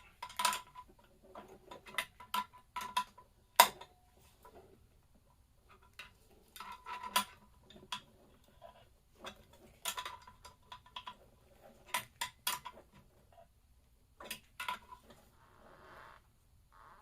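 Metal tools clinking, tapping and knocking against metal engine parts in irregular strokes, with one sharp loud strike about three and a half seconds in and a short scraping sound near the end.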